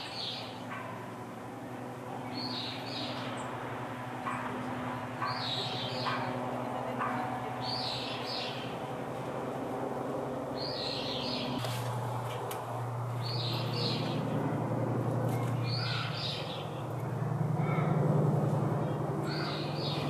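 A small songbird repeating a short, high call of two or three quick notes about every two and a half seconds, over a steady low hum.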